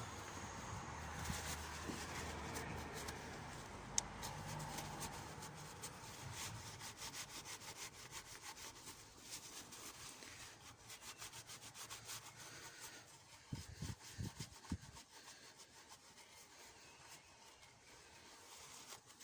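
Rapid, repeated rubbing and scraping strokes as the thermostat housing surface is cleaned, with a sharp tick about four seconds in and a few dull knocks later.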